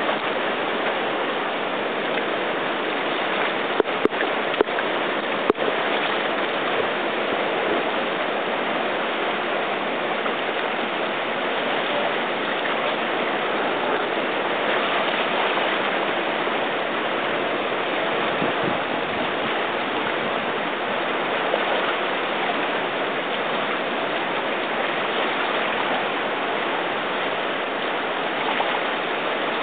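Whitewater rapid rushing steadily, a constant wash of churning river water. A few sharp clicks sound about four to five and a half seconds in.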